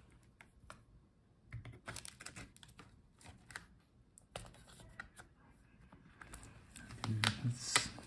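Scattered light clicks and taps of a thin plastic pry tool against a laptop's battery, cables and chassis as its internals are worked on, irregular and a little busier about a second and a half in and again near the end.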